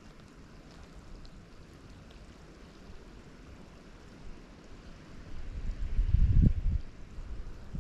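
Faint steady rush of creek current, then about five and a half seconds in a loud low rumble of wind buffeting the microphone for a second or two.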